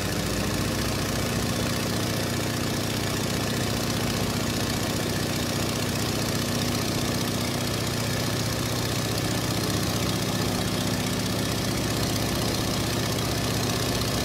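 Turboprop airliner's engine and propeller droning steadily, heard from inside the passenger cabin, with a low hum running under a wide, even rush of noise.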